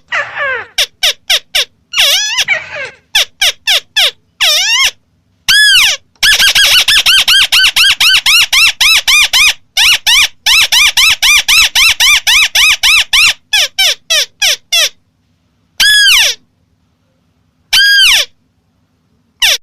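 White-browed crake (Amaurornis cinerea) calling: loud, rapid runs of repeated nasal, arched notes, about five a second, broken by short pauses, with a few single notes near the end.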